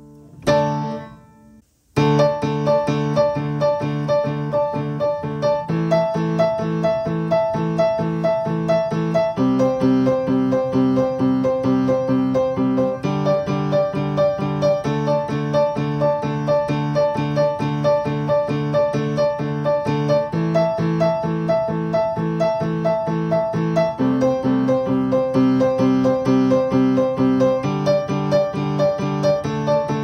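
Background keyboard music in a piano tone: rapidly repeated notes over chords that change every few seconds. It starts about two seconds in, after a brief sound that dies away.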